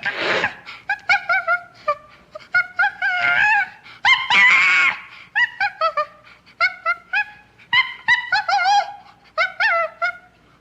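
Ape vocal sound effects in the manner of chimpanzees: a rapid string of short pitched hoots and grunts, broken by a harsh scream at the start and a longer one about four seconds in.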